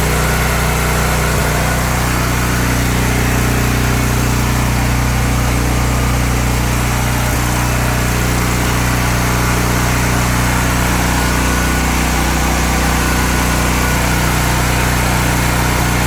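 Honda generator's engine running steadily at a constant speed, a little rough: the owner says it is misfiring a little.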